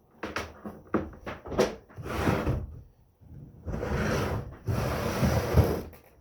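Handling noise: a quick series of clicks and knocks, then two longer stretches of rubbing and scraping as objects are moved about and handled.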